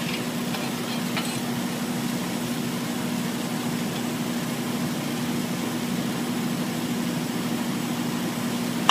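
Steady low hum of running workshop machinery, one constant tone that does not change. A light metallic clink at the start and another about a second in as the magnesium chainsaw case is handled.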